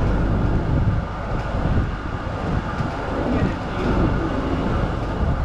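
Melbourne Z-class tram running along its line: a steady rumble of steel wheels on the rails, with a few faint clicks.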